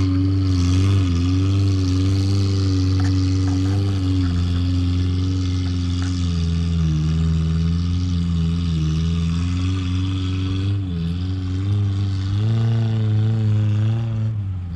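Off-road 4x4 vehicle engine running, its pitch dipping and rising again and again as the throttle changes, climbing higher about twelve seconds in.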